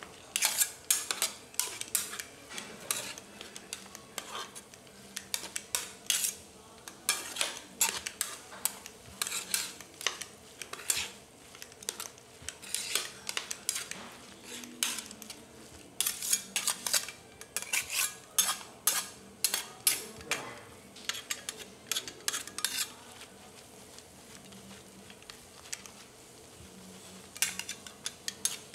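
Metal spatulas clacking and scraping on a hot iron griddle as fried rice is chopped and stir-fried. The taps come in quick runs with short pauses, and the longest lull falls near the end.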